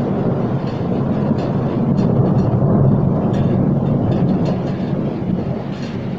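Rolling thunder after a lightning flash: a long, low rumble that grows to its loudest about three seconds in and then slowly dies away.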